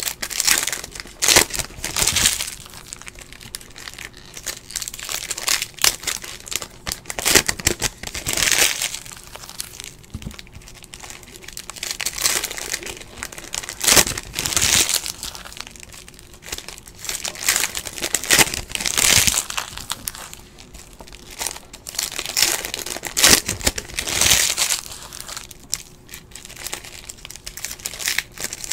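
Foil trading-card pack wrappers being torn open and crinkled by hand, in irregular bursts of crackling with short quieter gaps between.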